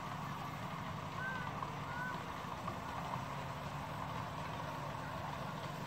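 A steady low engine hum, idling without change, with two brief faint chirps about one and two seconds in.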